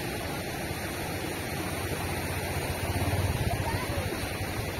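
Floodwater pouring over a small concrete weir, a steady rushing of falling water. A low rumble swells briefly about three seconds in.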